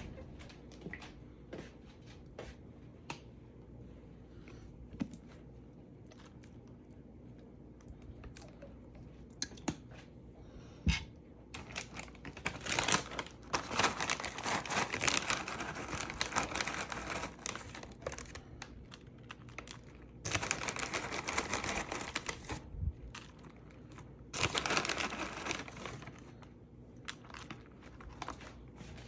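Crinkling and rustling in three long stretches, with scattered light clicks and knocks before them.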